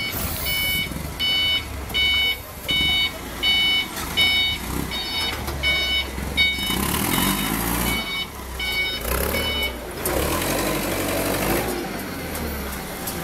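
Forklift's reversing alarm beeping about once every three-quarters of a second, stopping about ten seconds in, over the low running of its LPG engine.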